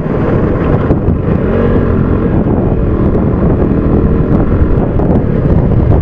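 Heavy wind rush buffeting the microphone on a motorcycle at speed, with the bike's engine note faintly underneath.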